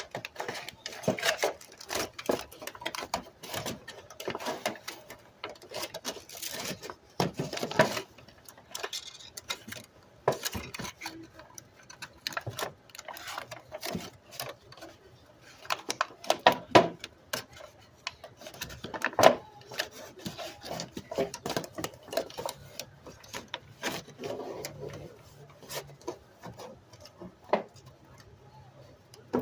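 Irregular clicks, knocks and rubbing from hands working at a register vent and its surround: handling, pressing and taping it in place.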